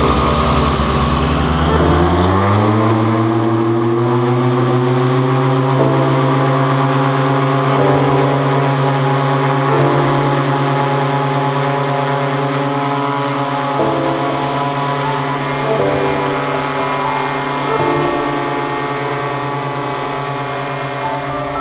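Polini Thor 250 single-cylinder two-stroke paramotor engine and propeller on a two-seat paratrike. It throttles up from low revs with a rising pitch about two seconds in, then runs steadily at high power through the takeoff roll.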